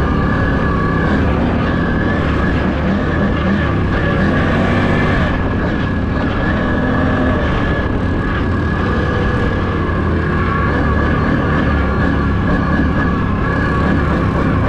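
ATV engine running steadily while riding, heard from the rider's own machine.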